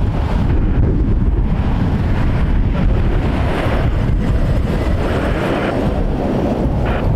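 Gusty wind buffeting the microphone over the steady rumble of a Boeing 787-9 Dreamliner's jet engines during its landing.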